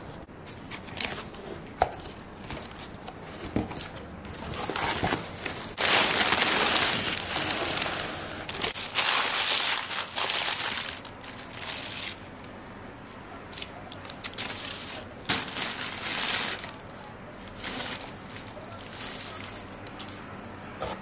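Thin packing paper rustling and crinkling as it is pulled out and unfolded from a cardboard parcel, loudest through the middle stretch, after a few light taps and handling knocks on the box at the start.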